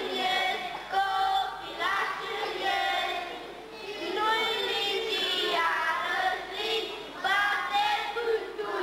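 A group of children singing a song together, phrase after phrase of held notes.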